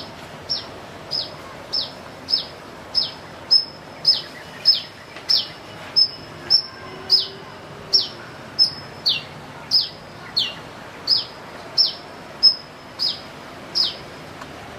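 A kolibri manggar sunbird calling with a steady run of high, piercing notes, about one and a half a second. Each note slides sharply down in pitch, a peeping call that sounds strangely like a chick.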